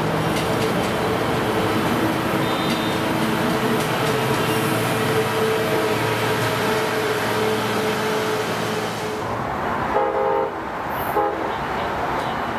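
A train running by on the rails, a steady dense rumble and wheel noise. Near the end come two short horn blasts, about ten and eleven seconds in.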